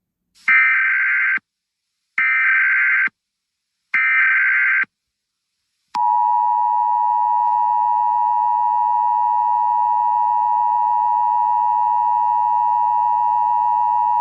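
Emergency Alert System header: three short bursts of data screech, each about a second long, followed by the steady two-tone EAS attention signal, held for about eight seconds.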